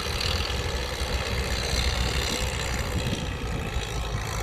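Old Fiat farm tractor's diesel engine running steadily as it drives a rear rotary tiller through wet paddy mud.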